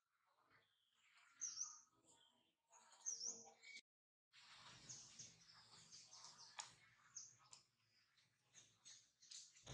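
A bird gives short, high chirps, repeated about every second and a half. After a brief break near the middle, faint rustling and small clicks follow, with a few weaker chirps.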